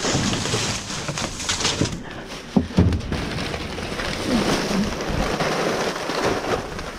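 A plastic bag of boxed food rustling as it is pulled out of a dumpster and handled, with two sharp thumps close together about two and a half seconds in.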